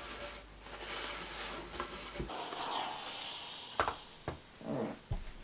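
Wool coat and its lining fabric rustling and swishing as they are handled and turned out, with a few light knocks near the end.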